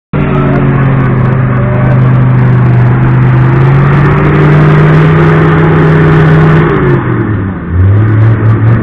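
Off-road 4x4's engine held at high, steady revs under load as it climbs through deep mud. About seven seconds in the revs drop away, then pick up again at a lower pitch.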